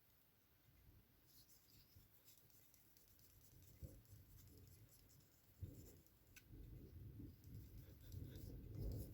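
Faint rubbing and scratching of a buffer stick worked across a small clear plastic model-car windscreen to polish it, with a few small ticks; it grows a little louder past the middle.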